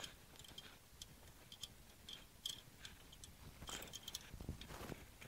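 Faint, irregular small metal clicks and ticks as a hydraulic hose fitting is threaded onto the valve manifold and tightened with a wrench.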